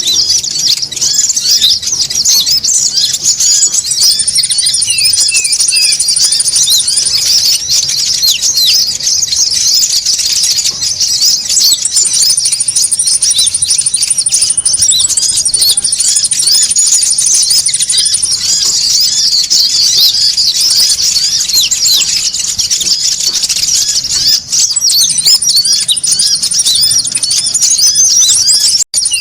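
A flock of konin birds chattering noisily, a dense run of quick, high-pitched chirps and squeaks with no pause, used as a lure call. A thin, very high, steady trill comes and goes over it several times.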